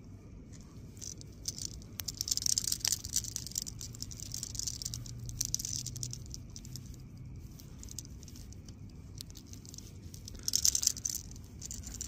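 Close-up handling noise: irregular crackly rustling and patter as fingers work a hook out of a small fish held in a plastic fish grip, in patches through the first half and again in a short loud burst near the end. A faint steady low hum sits underneath.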